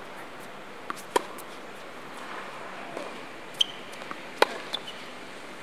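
Tennis rally on a hard court: sharp pops of the ball off racket strings and court, about five in all, the loudest about a second in and a little over four seconds in.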